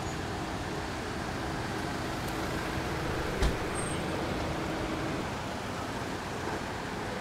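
Steady street traffic noise, with one sharp thump about three and a half seconds in.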